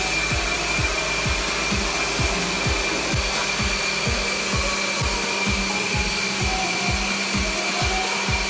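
Pressure-washer jet spraying water steadily onto an air-conditioner evaporator coil, a loud even hiss with a thin steady whine through it. Background music with a steady beat runs underneath.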